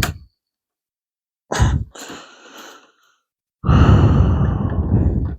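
A man's heavy breaths and sighs close to the microphone: a short one at the start, another a second and a half in, and a longer, louder exhale in the last two seconds.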